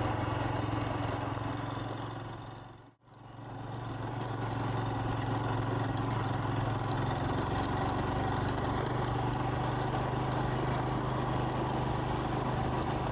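Royal Enfield Himalayan's single-cylinder engine running steadily while riding. About three seconds in, the sound fades briefly to near silence, then comes back up to the same steady running.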